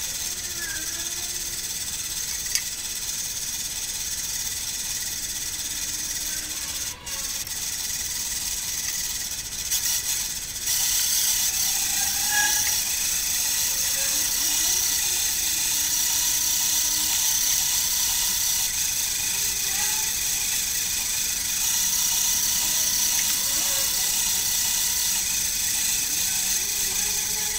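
Mini lathe running with an aluminium block turning in its four-jaw chuck while a tailstock drill bit bores into it: a steady hissing machine noise that grows louder about ten seconds in.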